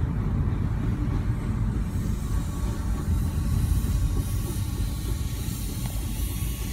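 Steady low rumble of a car driving at highway speed, heard inside the cabin, with a freight train running on the track alongside. A hiss grows stronger from about two seconds in.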